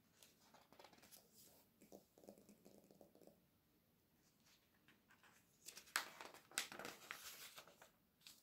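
Fingers brushing softly over glossy catalogue pages, then a page being turned with a crisp crinkling of paper about six seconds in.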